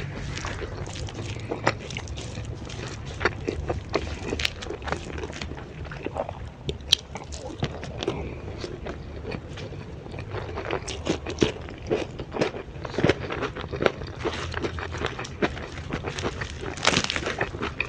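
Close-up eating sounds of a meal of grilled chicken with raw vegetables: irregular biting, crisp crunches and wet chewing clicks, busiest in the second half.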